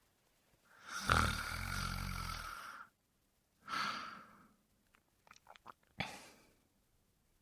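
A man snoring: one long snore about a second in with a low rumbling flutter, then a shorter breathy puff. A few short clicks follow, and a last sharp, sudden breath comes near the end.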